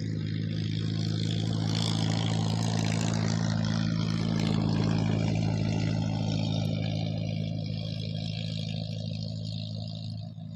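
A motor engine running with a steady low hum, and a rushing noise that swells over the first few seconds and fades toward the end.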